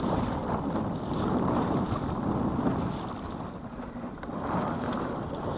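Pelican Bass Raider boat underway in choppy water: waves splashing against the hull under way, with wind buffeting the microphone.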